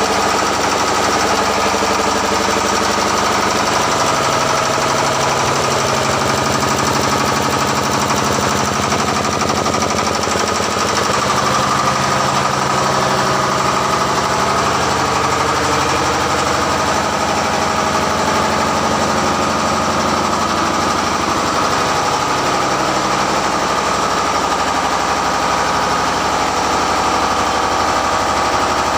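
Tugboat's diesel engines running steadily in the engine room: a loud, even machinery drone with a steady high whine over it.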